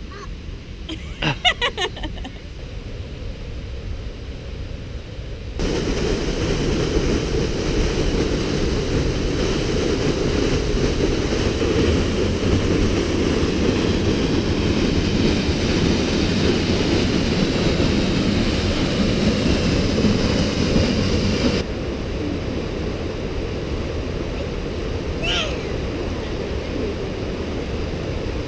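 Steady rushing of creek water, with wind on the microphone, as a loud even noise. It steps up sharply about six seconds in and eases a little after about twenty-two seconds.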